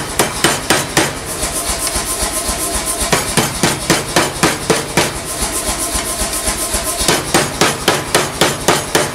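Hammer blows on a red-hot steel bar lying on an anvil during hot forging: a steady run of sharp metal strikes, about three a second. The blows turn lighter and quicker from about a second and a half in until about seven seconds, with the metal ringing between them.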